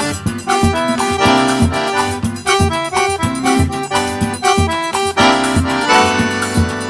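Accordion-led music with a steady rhythmic beat, in the style of festa junina quadrilha dance music.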